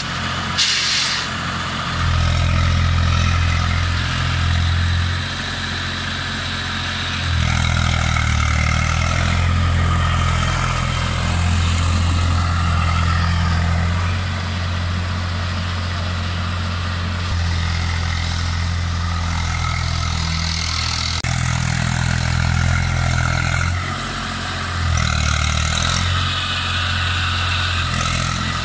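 Eicher 380 tractor's diesel engine running under load while it drags a puddler and leveller through a flooded paddy field, its level swelling and easing several times.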